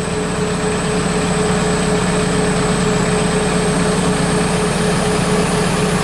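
Tractor engine idling steadily, with a steady high whine over the low hum, while hydraulics swing the square baler's tongue.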